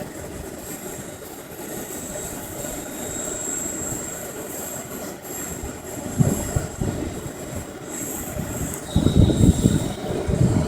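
Electric RC helicopter (GAUI 550 Hurricane) in flight, its motor and rotor giving a steady high whine. Wind rumbles on the microphone in gusts, loudest near the end.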